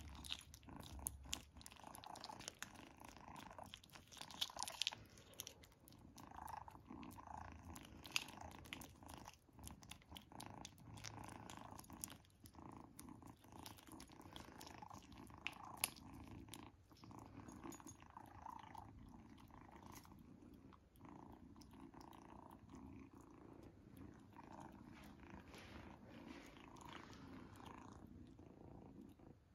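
Kitten licking creamy paste treat from a squeeze tube: quick wet smacking and lapping clicks, with a steady purr underneath. The smacking thins out near the end as she finishes and licks her lips.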